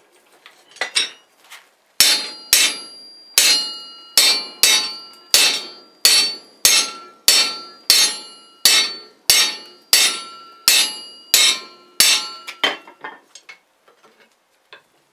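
Hand hammer striking the top half of a hinged clamshell collar tool on the anvil, forge-welding a white-hot collar onto a steel bar. After a couple of light taps comes a run of about eighteen loud, ringing blows, a little under two a second, ending in a few lighter taps.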